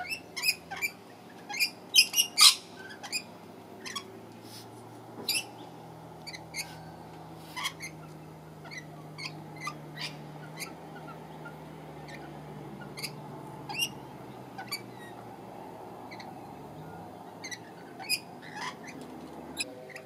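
Rainbow lorikeets giving short, sharp chattering calls at irregular intervals, loudest and most frequent in the first few seconds, over a steady low hum.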